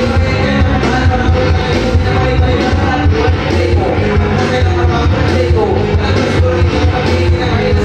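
Music: a song with vocals over a loud, steady bass line.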